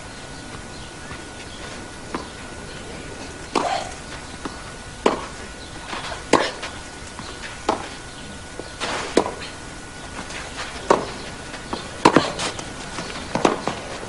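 Tennis rally on a clay court: rackets striking the ball back and forth, a sharp knock about every second and a half. A faint steady high tone runs underneath.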